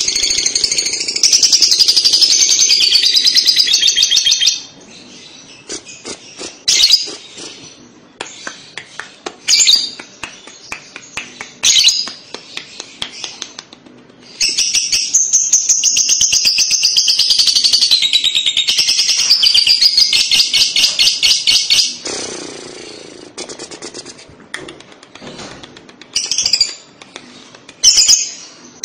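Fischer's lovebird singing its long, rapid chattering trill, the 'ngekek' that keepers play to prompt young lovebirds to answer. Two long runs of trilling, the second starting about halfway in and lasting about eight seconds, with short sharp chirps between and after.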